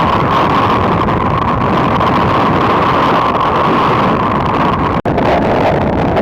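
Riding noise from a moving motorcycle: wind rushing hard over the microphone, with the motorcycle running underneath. The sound drops out for an instant about five seconds in.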